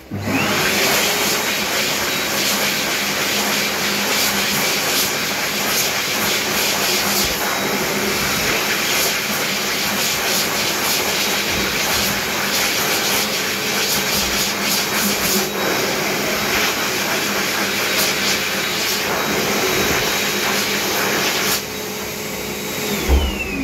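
Heatstore Tornado Select electric hand dryer switching on suddenly and blowing steadily: a loud rush of air with a steady motor whine. Near the end it drops in level, then the whine falls in pitch as the motor winds down.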